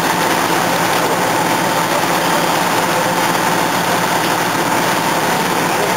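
Fire truck engines running steadily: a loud, even rush of engine noise with a thin, steady whine.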